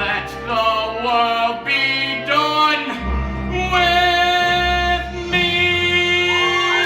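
Young male voice singing the closing words of a musical-theatre ballad with vibrato over instrumental accompaniment. The last note is held for about three seconds, from about four seconds in.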